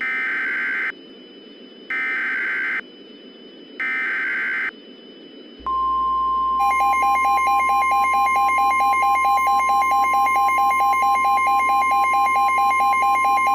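Emergency Alert System SAME header: three short bursts of warbling digital data tones. About six seconds in, the steady 1050 Hz NOAA Weather Radio warning alarm tone begins. About a second later a harsh, rapidly pulsing buzz joins it.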